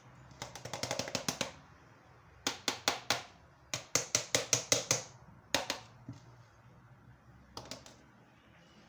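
Quick sharp kitchen taps in five short runs, about six or seven a second, made while grated onion is pressed for its juice.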